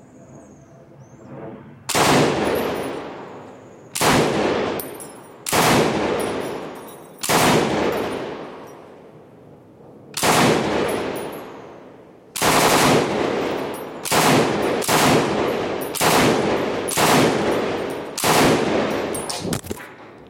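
IWI Negev 7.62 mm light machine gun firing about a dozen short bursts, one to two seconds apart, with the bursts coming faster near the end.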